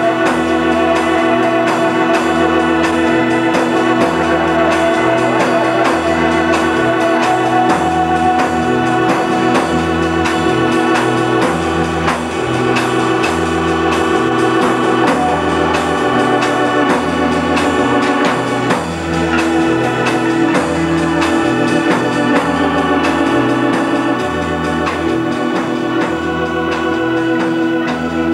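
Live rock band improvising: an organ holds long sustained chords over a repeating two-note bass figure, with drums and cymbals hitting throughout.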